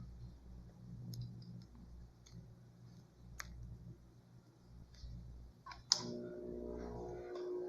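Sharp clicks at uneven intervals over a faint low hum. A louder click about six seconds in is followed by a steady pitched hum.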